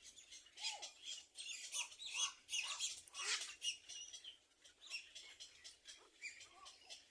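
Small birds chirping: a rapid run of short, high chirps and quick whistled glides, busiest in the first half and thinning out after about four seconds.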